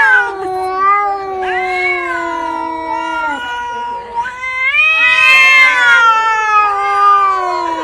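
Domestic cat yowling in long, drawn-out, wavering calls whose pitch slides downward. A second long yowl begins a little past the middle.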